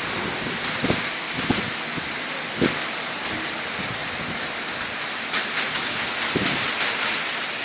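Heavy rain falling steadily from a thunderstorm, a constant hiss with a few scattered sharper drop taps.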